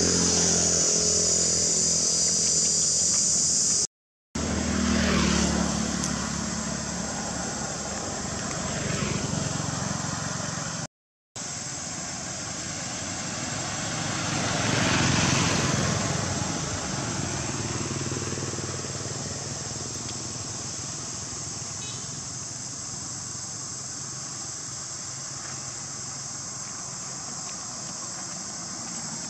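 Roadside ambience with motor vehicles passing. The clearest one swells up and fades away about halfway through. A steady high insect drone fills the first few seconds and stops at a brief dropout.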